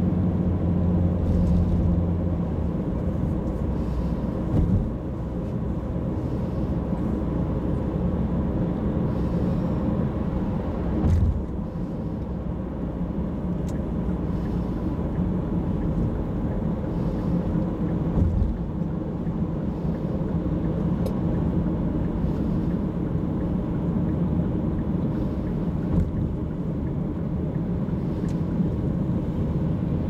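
Road noise inside a car moving at highway speed: a steady low rumble of tyres and engine. An engine hum drops away after about two seconds, and there are three short thumps as the wheels hit bumps or joints in the road.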